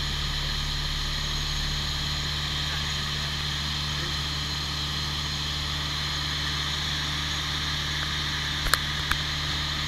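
Steady drone of a Rollason Condor light aircraft's piston engine and propeller in cruise, heard from inside the cockpit, with a couple of short clicks near the end.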